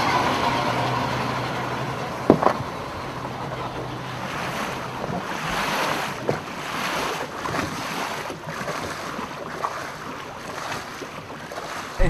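A boat under way on a river: water rushing along the hull and wind buffeting the microphone, with a low motor hum that fades over the first few seconds. A single sharp knock a little over two seconds in.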